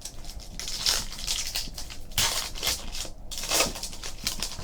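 Trading card pack's foil wrapper crinkling and tearing as it is opened and handled, in three spells of crackly noise.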